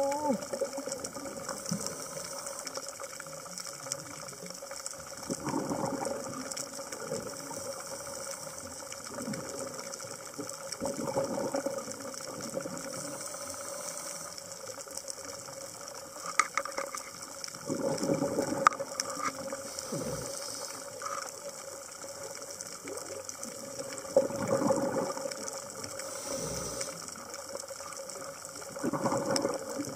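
Underwater sound on a night scuba dive: a diver's exhaled bubbles rushing out in bursts every several seconds, over a continuous fine crackling of clicks and a steady tone.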